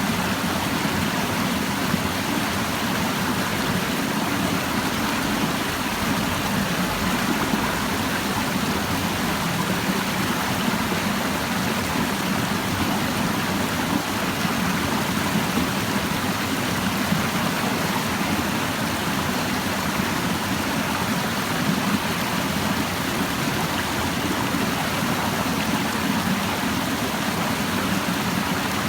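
Clear mountain stream babbling over rocks: a steady, even rush of flowing water.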